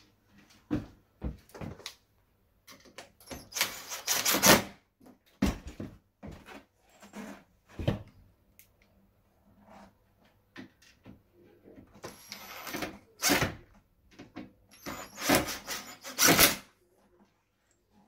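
Cordless driver running in three short bursts as it drives Phillips screws into a uPVC door's locking rail, with small clicks and knocks of handling in between.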